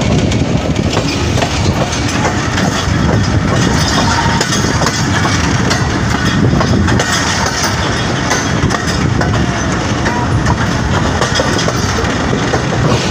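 Moving passenger train heard from an open coach doorway: a steady loud rumble of steel wheels on the rails, with many short clicks as the wheels run over the track.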